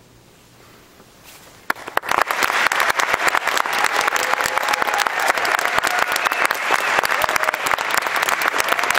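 A hushed pause, then audience applause breaks out suddenly about two seconds in and carries on as dense, steady clapping.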